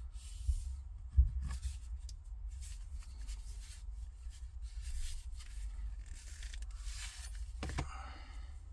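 Stitched leather sheath rubbing and scraping as a santoku knife is handled in it and drawn out. There are low knocks about a second in and a sharper scrape near the end.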